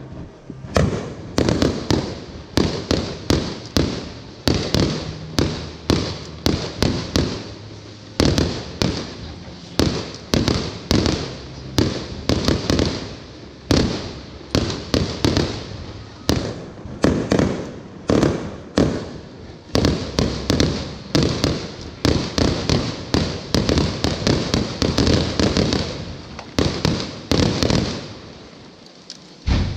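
Fireworks going off in a rapid, continuous series of sharp bangs, several a second, thinning out near the end.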